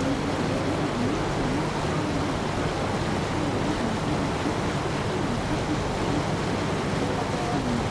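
River tour boat under way: a steady low engine hum under a constant rush of wind and water noise.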